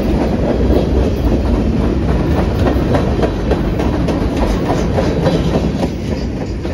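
Freight train cars rolling past close by: a steady rumble of steel wheels on rail with irregular clacks as the wheels cross rail joints, easing slightly near the end.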